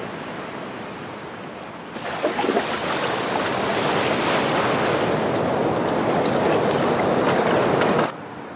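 Low steady background hiss, then about two seconds in, sea waves washing onto a beach: a loud, even rush of surf that cuts off suddenly near the end.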